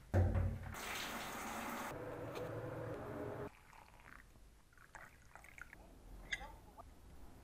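Shower spray hissing briefly, then water poured from an electric kettle into a mug. The pour stops abruptly about three and a half seconds in, followed by a few faint light clicks.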